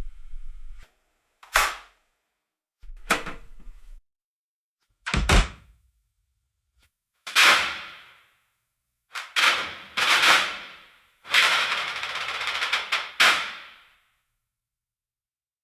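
A series of separate sharp bangs and thuds with silent gaps between them, several fading away after the hit, and a longer crash-like burst of noise about eleven to thirteen seconds in.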